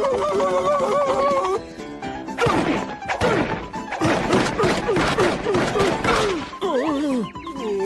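Cartoon soundtrack with music and comic sound effects: a wavering musical tone for about a second and a half, then a quick run of whacks, each with a falling pitch, about three a second, and wavering bending notes near the end.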